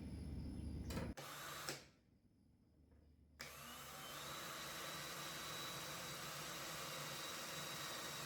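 Steady machine whir with a faint hum and a thin high tone, starting suddenly a few seconds in after a brief near-silent gap; before the gap, a different low rumbling noise cuts off abruptly about a second in.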